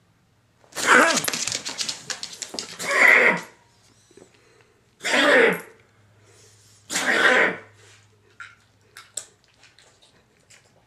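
Dog coughing with kennel cough: a long coughing fit about a second in, then two shorter coughs a couple of seconds apart, followed by a few faint ticks.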